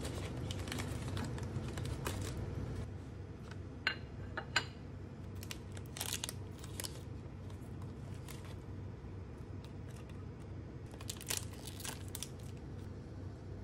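Plastic snack wrappers crinkling and tearing as individually wrapped pastries are opened by hand, in scattered bursts with two sharp clicks about four seconds in, over a low steady hum.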